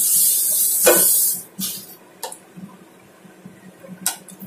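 Sizzling in a hot stainless steel pot: a loud hiss with a knock about a second in, cutting off suddenly about a second and a half in. A few light clacks of a wooden spatula against the pot follow.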